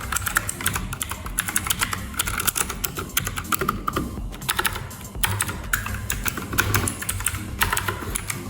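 Fantech Atom MK886 mechanical keyboard being typed on quickly: a dense, fast run of key clicks, with brief pauses around the middle.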